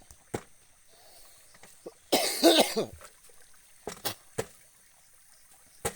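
A person coughs once, a short harsh burst about two seconds in, with a few sharp clicks before and after it.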